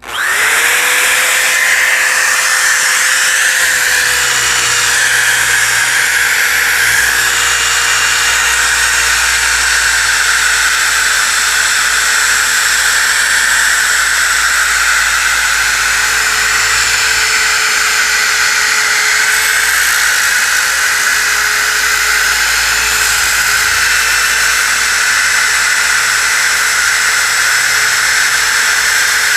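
DeWalt DWE6401DS disc sander switched on at full speed, spinning up to a steady high whine within the first second, then running on with the gritty rasp of an 80-grit disc sanding a pine board and dried glue squeeze-out.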